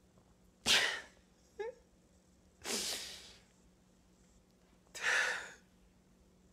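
Three sharp, breathy bursts of sound from a man, about two seconds apart, with a short falling squeak just after the first.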